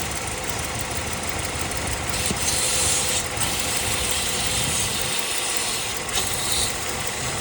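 Chevrolet Silverado 5.3 L V8 idling steadily, with a vacuum leak from a broken vacuum hose; a brief high hiss rises over it twice, about two seconds in and near the end.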